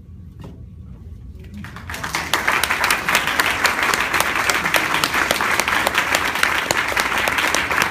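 Audience applause: a few scattered claps, then clapping breaking out across the room about two seconds in and swelling to a full, steady round of applause.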